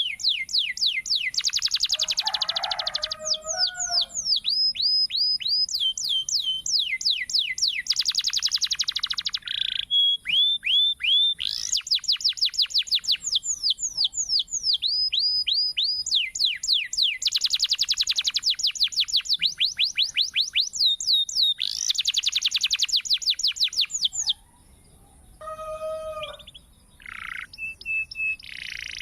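Domestic canary singing a long, fast song of rapidly repeated sweeping notes and rolling trills, which turns quieter and broken into short phrases after about 24 seconds.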